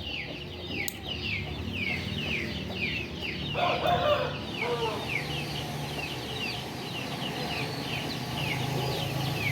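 Chicks peeping: a continuous run of short, high, falling peeps, several a second, with a brief lower call about four seconds in. A low steady hum runs underneath.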